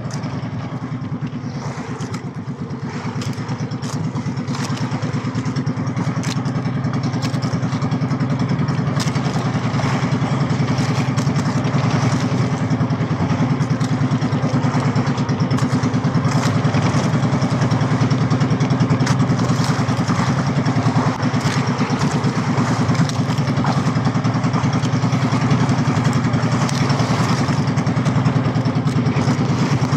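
The small engine of a motorized outrigger boat running steadily under way, with water rushing along the hull. It grows a little louder over the first several seconds, then holds steady.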